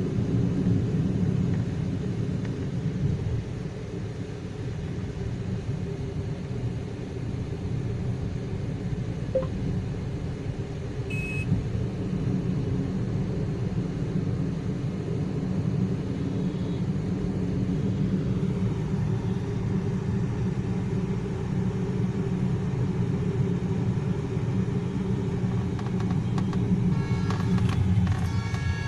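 Steady low rumble of a car's engine and tyres on the road, heard from inside the moving car's cabin. A brief high beep sounds about eleven seconds in, and a vehicle horn sounds near the end.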